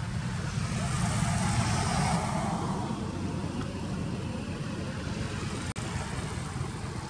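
Road traffic: a steady low engine rumble, with a vehicle passing that swells and fades about one to two seconds in. The sound drops out for an instant near the end.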